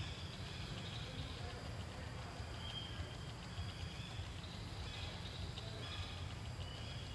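Outdoor forest ambience: a steady low rumble with faint, short high-pitched calls now and then.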